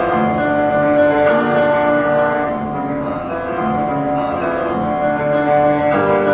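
Instrumental music: a melody over chords, notes sustained and changing at a moderate pace, with no singing.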